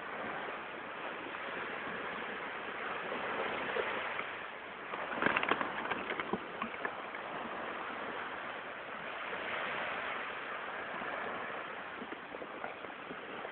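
Small waves washing in over sand, a steady rushing hiss, with a louder, crackling surge about five seconds in.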